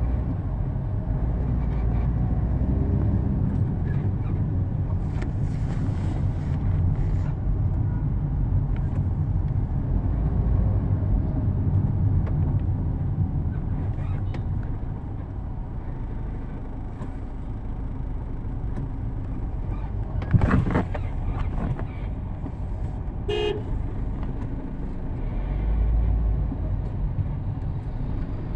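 Motorcycle engine running with a steady low rumble of road and wind noise as it is ridden. A vehicle horn toots briefly about three-quarters of the way through, just after a short louder burst.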